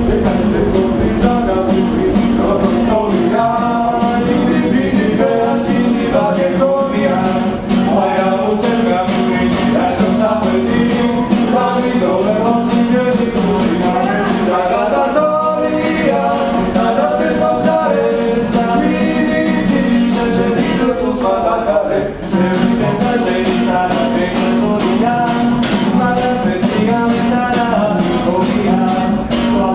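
A song: singing over guitar, with a steady beat.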